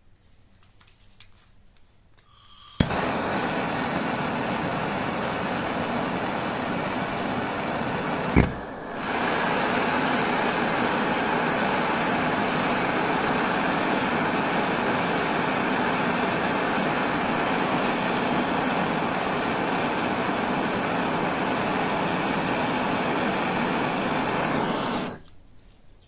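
Handheld gas torch lit with a sharp click about three seconds in, then the steady hiss of its flame heating small copper rivet blanks to red heat. A second click and a brief dip in the hiss come about eight seconds in, and the flame cuts off suddenly about a second before the end.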